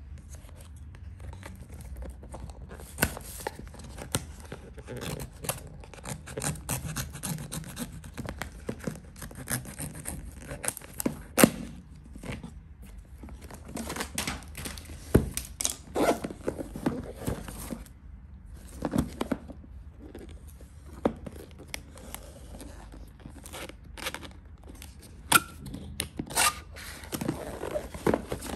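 A cardboard box being unpacked by hand: its plastic packing strap is taken off, then the box is handled and its lid lifted. Irregular scrapes, taps and rustles of cardboard and plastic.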